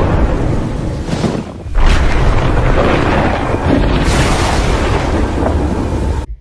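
Loud, dense rumbling intro soundtrack with deep booms, swelling again about two seconds in and around four seconds, then cutting off suddenly just before the end.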